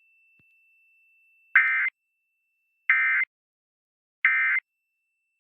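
Emergency Alert System end-of-message (EOM) signal: three short bursts of the two-tone digital SAME data squawk, evenly spaced about a second and a third apart, marking the end of the test message.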